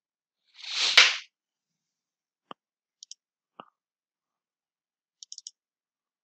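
A short rush of noise swelling to a sharp click about a second in, followed by faint, scattered computer mouse clicks, a few single and double, with a quick cluster of clicks near the end.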